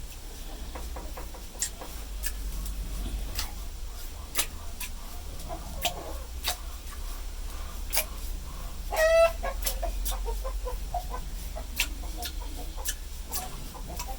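Scattered sharp clicks and taps over a steady low hum, with one short, high, bird-like call about nine seconds in, the loudest sound.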